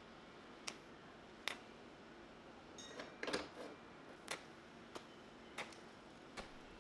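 Sparse light clicks and knocks, roughly one a second, with a short cluster of rattling clicks about three seconds in: small hard parts or tools being handled.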